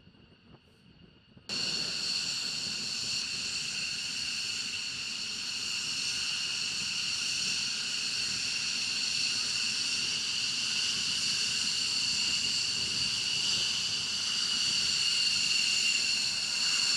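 F-15E Strike Eagle jet engines whining at taxi power: a steady high-pitched whine over a hiss. It is faint at first, then comes in suddenly and loud about a second and a half in, growing a little louder toward the end.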